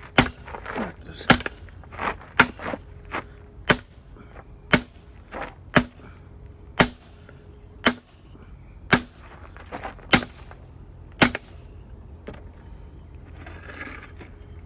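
Hammer striking the metal of a pool heater being broken apart for scrap, about eleven hard blows roughly once a second with a metallic ring, with lighter knocks in between, stopping about eleven seconds in.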